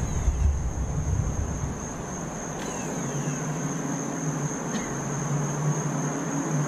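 Carefree Compass RV awning's newly replaced electric motor running, extending the awning with a low steady hum. A cricket chirrs steadily in the background.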